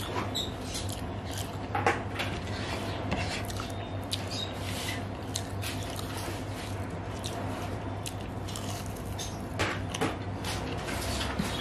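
Eating by hand: fingers squishing and mixing rice with poppy-seed paste and mashed potato on a plate, with chewing and wet mouth smacks. There are scattered short clicks over a steady low hum.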